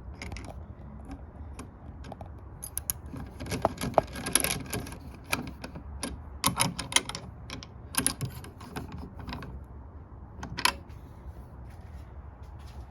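Irregular clicks and knocks of hands handling and closing something small, busiest in the middle, over a steady low hum.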